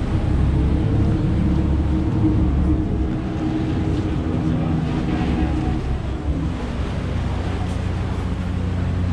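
Ferry's engine running with a steady low drone as the boat pulls in to the landing, its note changing about six seconds in.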